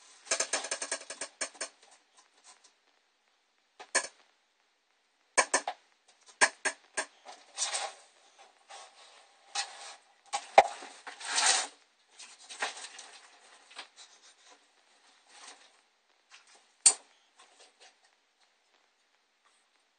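Hand-handling noise inside a reptile enclosure: irregular clattering, scraping and rubbing of objects, in clusters, with a sharp knock about ten seconds in and another near the end.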